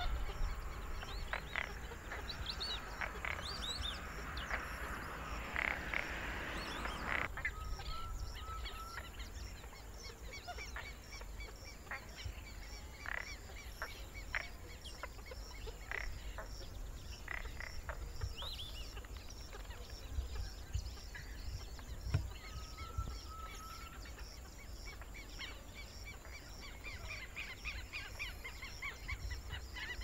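Purple gallinule calling: a run of short notes at irregular intervals, busiest in the first seven seconds.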